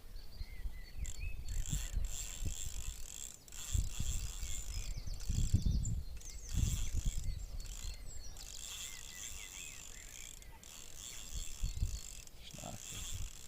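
Carp fishing reel ticking in fast runs as a hooked carp is played, with dull low thumps mixed in.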